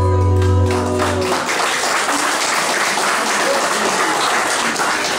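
A held electric guitar chord rings and fades out about a second in, ending a song, then a small audience applauds.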